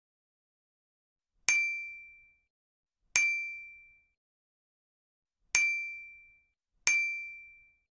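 Four bright, bell-like ding sound effects, each struck sharply and ringing out within about a second, spaced one to two seconds apart: the pop-up chimes of on-screen subscribe, like and comment buttons.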